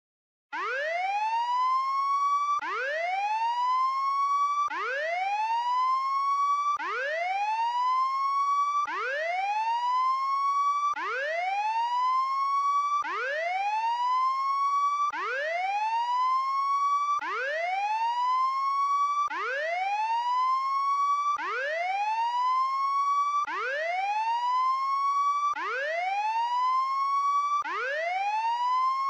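Prison break alarm: an electronic whooping tone that sweeps steeply up and then levels off, snapping back to a low start about every two seconds and repeating over and over. It starts about half a second in.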